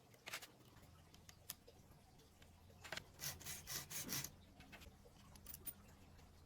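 Faint scraping and rubbing of hand work on the chainsaw's guide-bar mount, with one short stroke at the start and a quick run of several scrapes about three to four seconds in.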